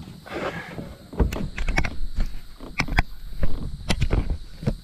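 A string of irregular sharp clicks and knocks, some with dull low thumps, spaced unevenly through a few seconds.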